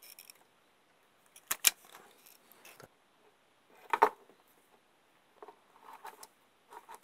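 Sharp clicks of side cutters working on automotive wiring: two close together about a second and a half in and a louder one about four seconds in. Between and after them, faint rustling as the wire ends are twisted together by hand.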